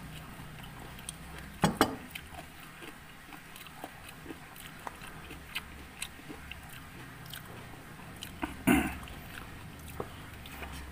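A person chewing food close to the microphone, with many small wet mouth clicks and smacks. Two louder knocks cut through, a double one about two seconds in and another near nine seconds in.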